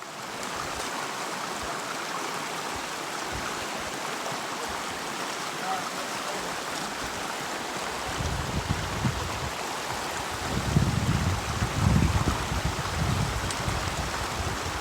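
Creek water rushing steadily at a crossing. From about eight seconds in, irregular low thuds and rumbles join it.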